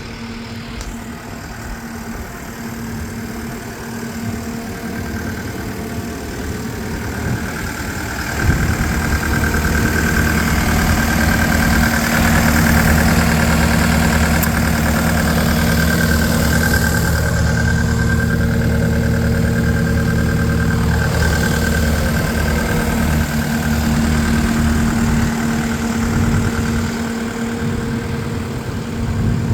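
New Holland L228 skid steer's diesel engine running, getting louder about eight seconds in and holding there, with a high steady whine over it through the middle stretch.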